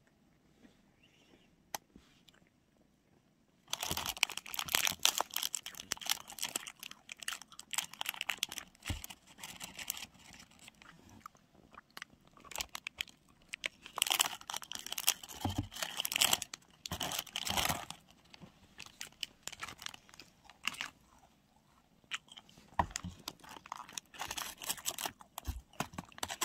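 Close-up crunching and chewing of a crunchy sweet snack. It comes in several bursts of crackly bites with short pauses between them, starting a few seconds in after a quiet opening.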